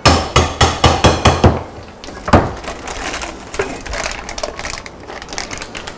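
Kitchen knife chopping red chili peppers on a cutting board: a quick run of about six chops a second for a second and a half, one harder chop a little after two seconds, then lighter, scattered knife taps.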